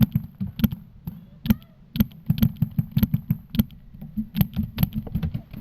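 Paintball marker firing an uneven string of sharp shots, several a second, laying down covering fire, over a low rumble.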